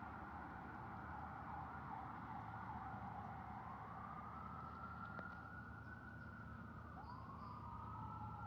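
Emergency vehicle siren wailing, its pitch sweeping slowly up and down, with a new rising sweep near the end.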